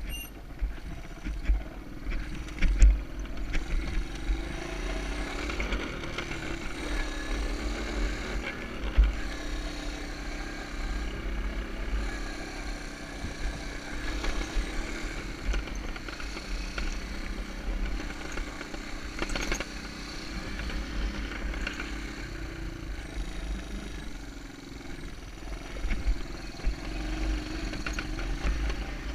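Honda ATC 125M three-wheeler's small four-stroke single-cylinder engine running under way, its pitch rising and falling with the throttle, with wind rumbling on the microphone.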